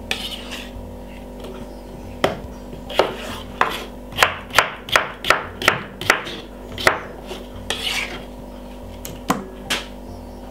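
Kitchen knife chopping cucumber on a wooden cutting board: sharp chops, a few spaced ones and then a quick run of about three a second in the middle.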